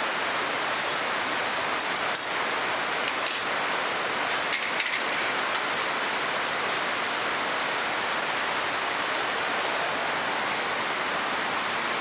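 Steady rushing of flowing water, with a few faint light clinks about two to five seconds in.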